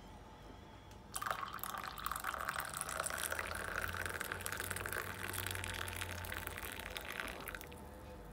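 Water poured from a kettle into a glass cup of coffee, a steady splashing pour that starts about a second in and stops shortly before the end.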